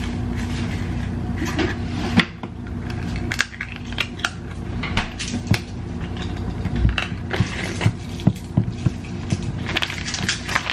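Plastic zip-top bag of flour crinkling and rustling while spice powder is shaken in from a plastic shaker jar, with small clicks and taps of the jar and its lid. A steady low hum under it stops after a sharp knock about two seconds in.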